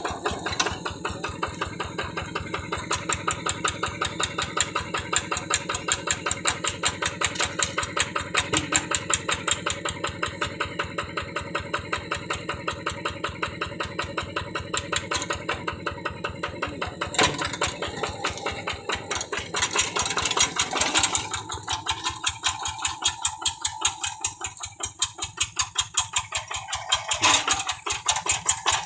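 Single-cylinder diesel engine of a two-wheel rice-paddy hand tractor running steadily with an even, pulsing chug as the tractor drives along on its steel cage wheels.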